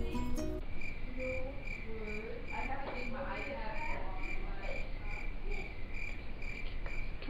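Cricket chirping sound effect: a steady run of short, evenly spaced chirps, about two and a half a second, laid in over a zoomed-in reaction shot as the 'crickets' awkward-silence gag.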